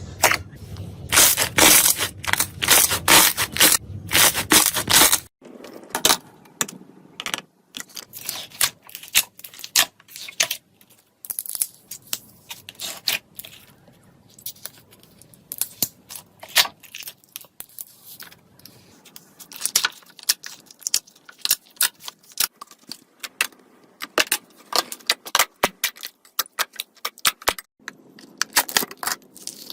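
Slime being squeezed and poked by hand, giving sharp crackling, popping clicks. The crackling is dense for about the first five seconds, then turns into sparser, scattered pops and clicks.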